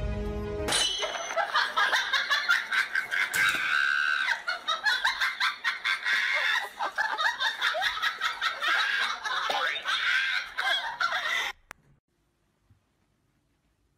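High-pitched laughter, dense and fluttering, that cuts off abruptly about eleven and a half seconds in, leaving near silence.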